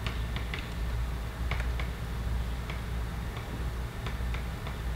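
Chalk tapping and scratching on a blackboard as words are written: a string of light, irregular clicks over a low steady hum.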